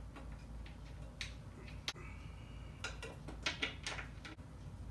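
Scattered light clicks and taps of screws being set by hand into a gaming chair's seat mechanism, with one sharper click about two seconds in and a few more near the end.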